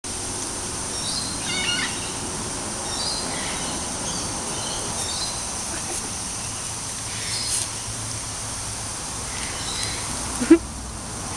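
Outdoor ambience of scattered short bird chirps over a steady high hiss, with a brief loud low sound about ten and a half seconds in.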